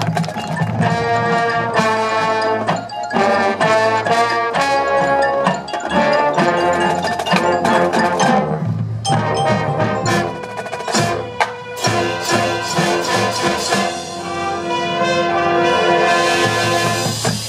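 Marching band playing its field show: sustained chords over percussion strikes.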